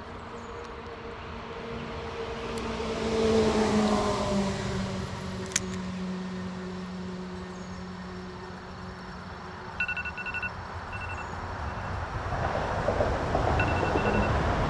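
A vehicle passes, its engine tone falling in pitch as it goes by a few seconds in. From about ten seconds in, an alarm sounds in short repeated high beeps.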